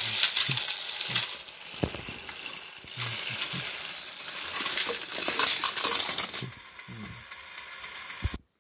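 Motorised Thomas & Friends toy engines and cars clattering and rattling, hard plastic knocking on plastic, as they shove against each other and tumble off the track onto a heap of other toy trains. The clatter is busiest about halfway through and cuts off abruptly near the end.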